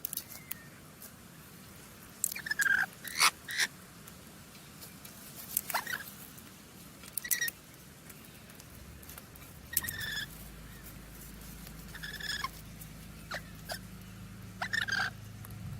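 Parrots giving short, scattered chirps and squawks, one or two every couple of seconds, with sharp clicks between them. A low steady hum comes in about ten seconds in.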